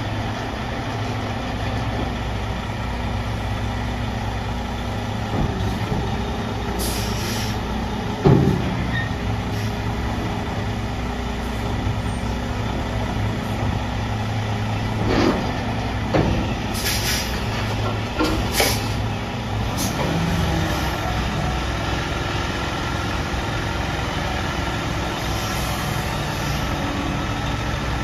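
Pak-Mor side-loader garbage truck idling steadily, with several sharp clanks and short bursts of air hiss. In the last several seconds a steady hydraulic whine sets in as the side arm lifts a dumpster.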